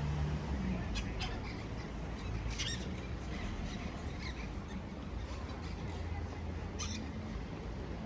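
Scattered short, high bird chirps a few times, over a steady low outdoor rumble.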